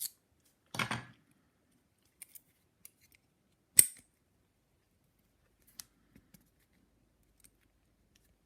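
Scattered small metallic clicks and a brief scrape from lockpicking tools working a padlock, with one sharp, loud click a little under four seconds in.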